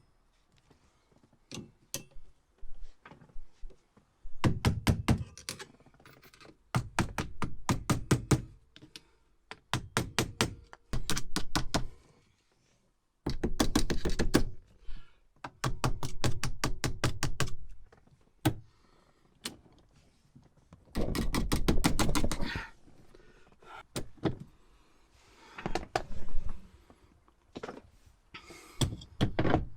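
Ratchet spanner clicking in quick runs of rapid, evenly spaced clicks, one to two seconds each, with single knocks between, as the steering wheel nut is worked onto the steering column's thread.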